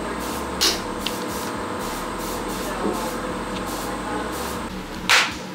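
Two thuds of potter's clay being slapped together and down during wedging, one about half a second in and a louder one near the end, over a steady background hiss.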